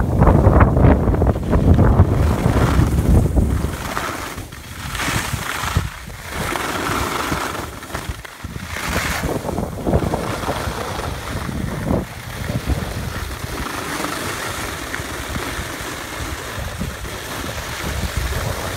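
Strong wind buffeting the microphone of a camera carried by a moving skier: a heavy low rumble for the first few seconds, then a steadier rush of wind that swells and dips.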